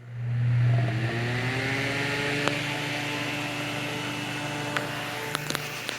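Holmes Blizzard fan's small C-frame shaded-pole motor starting up on high speed: a loud hum at switch-on, then a whir that rises in pitch for about two seconds as the motor comes up to speed and settles into a steady run. A few light clicks near the end.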